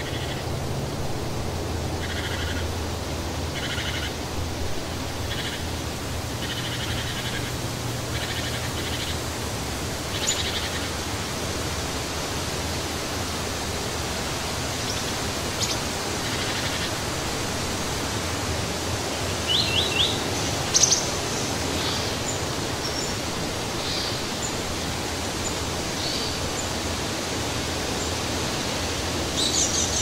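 Steady wind noise through trees, with small birds chirping over it: a run of short, evenly spaced calls in the first several seconds, then scattered higher chirps, with a quick, louder cluster a little past the middle.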